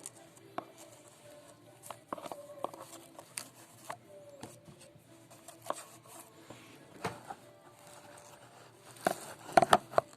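Faint background music under scattered clicks and knocks of small objects being handled, with a louder cluster of knocks about nine seconds in.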